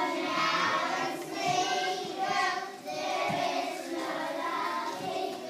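A group of children singing together in chorus, in phrases with short breaks between them. A few soft low thumps sound under the singing.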